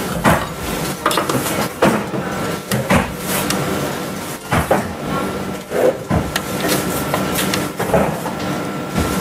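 Irregular clicks and light knocks, about one a second, from multimeter probes and wires being handled at the water heater's terminals, over a steady background noise with a faint steady tone.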